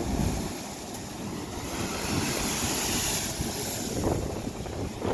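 Sea surging and spraying through a coastal rock blowhole, with wind rumbling on the microphone; a hissing rush of spray swells through the middle and eases off near the end.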